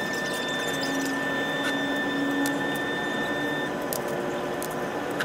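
Steady machinery hum and room noise aboard a ferry, with a few light clinks of plates and tableware.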